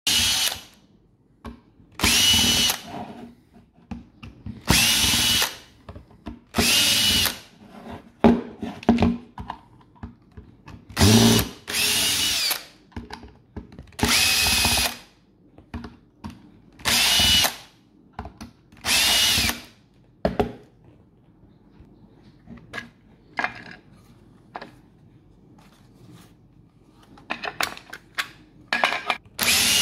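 A small cordless drill-driver running in short bursts of about a second, nine of them in the first twenty seconds, its motor whine rising and falling with each, as it backs the screws out of a power-tool battery pack's plastic case. Lighter clicks and taps of handling follow, with one more burst at the end.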